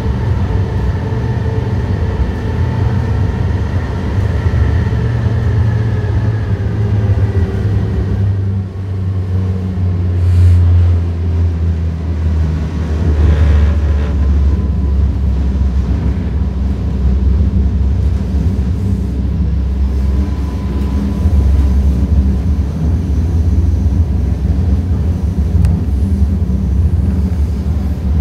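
Cabin noise of an Alstom Citadis light rail train running at speed: a steady low rumble from the wheels on the track, with a faint high motor whine over the first several seconds. The rumble swells about ten and thirteen seconds in.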